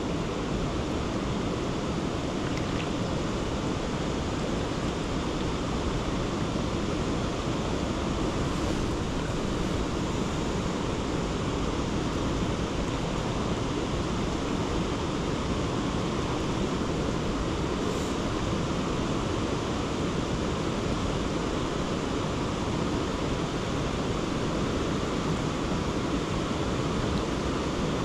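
Steady flowing water of the Yoshino River's main current, an even wash of river noise with no break.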